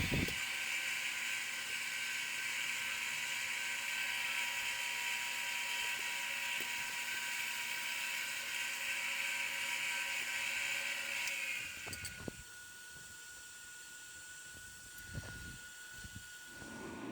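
Grizzly G0555LX bandsaw running steadily with a hiss and whine during setup. It is switched off about twelve seconds in, leaving a faint steady whine and a few soft knocks.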